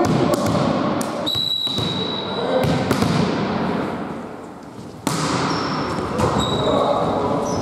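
Volleyball game in an echoing gym: players' voices and thuds of the ball being hit. About a second in, a referee's whistle sounds for just over a second, and about five seconds in the ball is struck hard.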